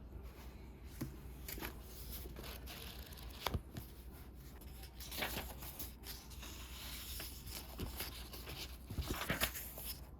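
Close handling noises: irregular rustling and crinkling, like paper or packaging being torn and handled, with scattered light taps and clicks.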